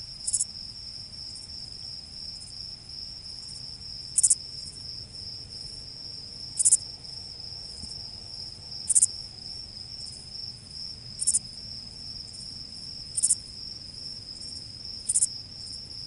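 Crickets: a steady high-pitched insect trill with short, louder chirps about every two seconds over faint background noise.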